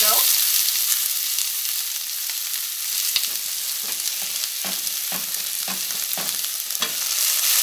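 Chorizo and diced onion frying in two pans, a steady sizzle, the onion in olive oil. From about three seconds in, a wooden spoon stirring the chorizo knocks against its skillet about two times a second.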